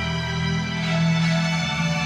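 Instrumental accompaniment of a slow ballad playing held, sustained chords with no singing, in the closing bars after the last sung line.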